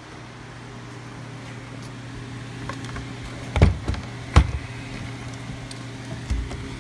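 Steady low hum of shop machinery or ventilation, with two sharp knocks about three and a half seconds in, less than a second apart, and a softer thump near the end, as parts are handled on a wooden workbench.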